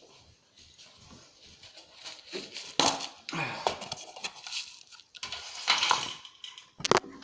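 Handling noise: irregular rustling and clattering as things are moved about and a container is picked up, with sharp knocks, the loudest about three seconds in and near the end.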